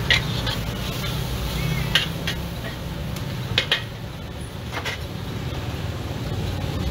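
Metal spatula striking and scraping a wok while mixed fried noodles and vegetables are stir-fried over a gas burner. There are several sharp clangs, two of them in quick succession near the middle, over a steady low rumble.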